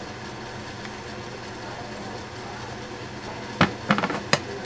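A few sharp clicks and clacks about three and a half seconds in as a pair of scissors is picked up off a hard countertop, over a steady low background hum.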